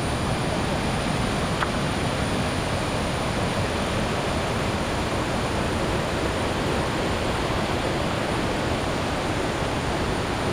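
Waterfall's falling water rushing in a steady, even noise that does not let up.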